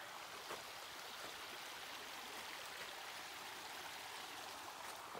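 Small forest creek flowing over rocks: a steady, even rushing of water.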